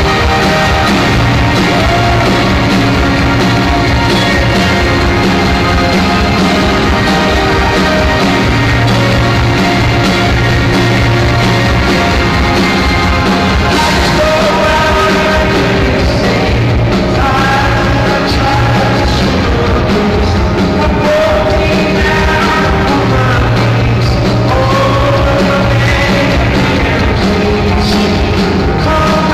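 Loud live rock band performance with a singer over the full band.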